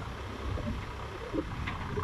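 Komatsu backhoe loader's diesel engine running with a steady low rumble while the digging arm works.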